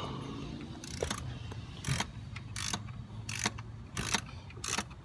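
Hand ratchet wrench clicking in short bursts, one back-swing about every three-quarters of a second, as a thermostat housing bolt is run down and tightened.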